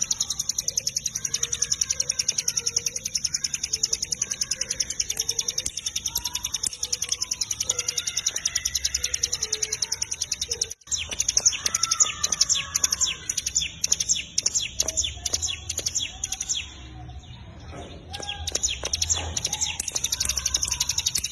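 Cigun (ciblek gunung) singing in full song: a long, fast run of high, evenly repeated chirps over lower warbling notes. The run breaks briefly about halfway through, and again for about a second near the end.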